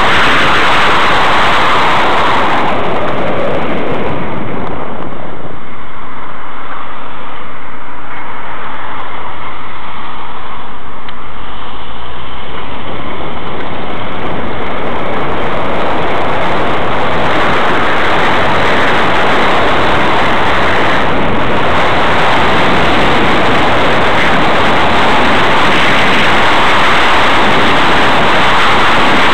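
Steady loud rush of wind and road noise on a bike-mounted camera's microphone as an e-bike rides along the road. It eases off for several seconds a few seconds in, then comes back.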